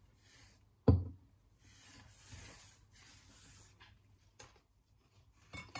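A hard knock as a cast alabaster figurine is set down on a stone countertop, followed by a few seconds of soft rubbing and rustling from gloved hands.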